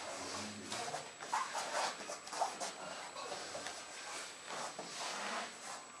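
Irregular soft rustling and shuffling of clothing and bodies moving on a floor mat during hands-on work on a person lying face down.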